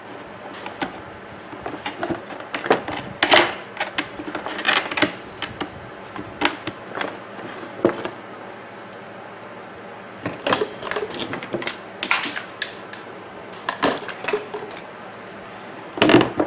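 Irregular clicks, knocks and light rattles of a coffee maker's housing and parts being handled and taken apart by hand. There are clusters of sharp clicks around 3 to 5 seconds in and again around 10 to 14 seconds in.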